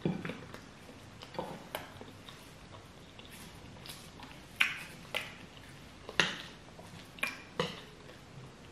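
Metal fork and spoon clinking and scraping on ceramic plates while scooping soft food, with chewing in between: a string of short, separate sharp clicks, about eight in all.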